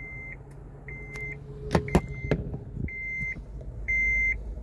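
An electronic beeper sounds a steady high tone about once a second, each beep about half a second long. Two sharp clicks come a little before the middle.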